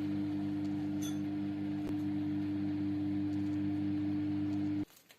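Microwave oven running with a steady electrical hum, which cuts off abruptly near the end.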